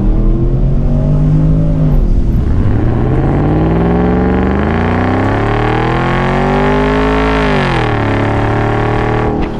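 2008 Porsche Cayenne S's naturally aspirated 4.8-litre V8 accelerating hard through its aftermarket exhaust, heard at the exhaust tip. The revs dip about two seconds in, climb steadily for about five seconds, then fall back sharply near the end.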